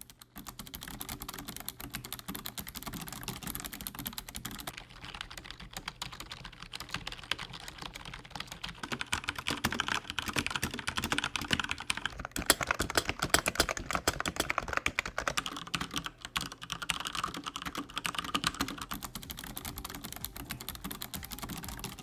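Fast typing on keyboards as a switch sound test: the Razer Ornata's mecha-membrane keys, which click as they near bottoming out, alternate with a Corsair K70 RapidFire's Cherry MX Speed mechanical switches. The typing sound changes character partway through as the keyboard changes.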